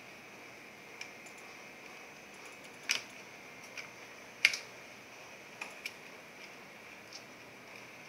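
Scattered small sharp clicks and taps, the loudest about four and a half seconds in, from hands handling the plastic and metal parts of an Acer Aspire One netbook being taken apart.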